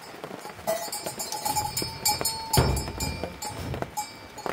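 Livestock in a farm pen with a bell clinking and ringing among them, and a short animal call about a second in, over a low rumble of rain and movement.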